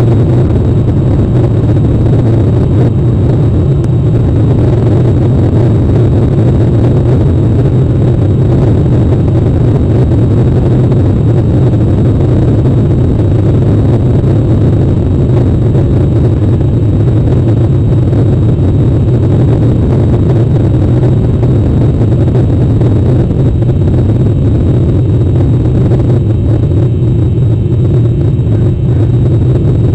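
Steady, loud, low rumbling noise picked up by an outdoor camera microphone, with a faint steady high whine above it.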